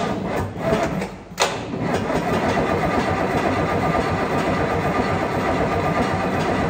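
Scania 141 V8 diesel cranking on the starter and catching about a second and a half in, then running steadily: its first start after being swapped into a new truck.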